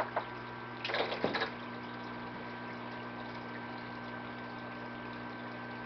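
Saltwater aquarium equipment running: a steady water trickle from a Santa Monica 100 algae scrubber and its drain, with the low, even hum of pumps and powerheads. A short rustle and knock about a second in.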